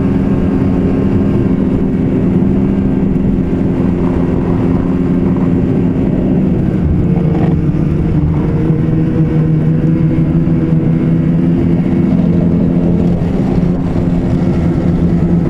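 Ski-Doo 850 E-TEC two-stroke snowmobile engine running steadily while riding along the trail, its pitch dipping and rising a little partway through.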